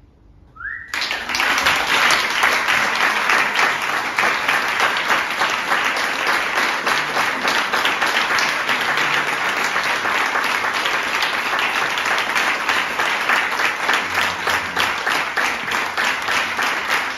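Audience applauding: clapping breaks out suddenly about a second in and carries on, dense and steady, from a large seated crowd.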